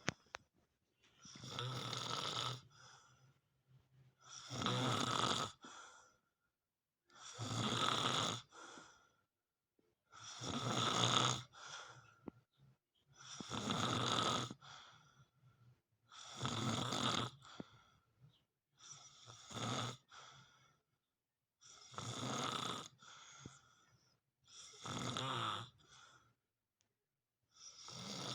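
A person snoring in deep sleep after a 2 mg dose of clonazepam, about ten raspy, rumbling snores, one every three seconds or so, with quiet pauses between breaths.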